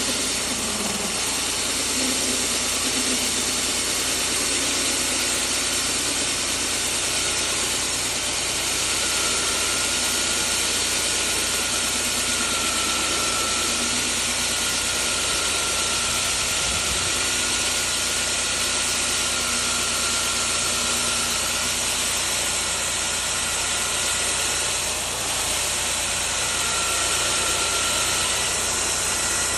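Dr. Schulze DDM350T rig-mounted core drill motor running steadily, a dense hiss with a faint whining tone over it.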